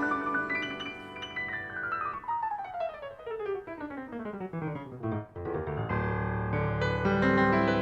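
Piano playing solo: a long run of notes cascading downward, then settling into full, ringing chords in the low register about six seconds in.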